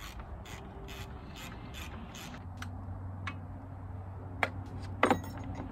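Ratchet wrench clicking in short, uneven strokes, roughly two clicks a second, as a bolt on the tractor's fender is turned. A low steady hum runs underneath.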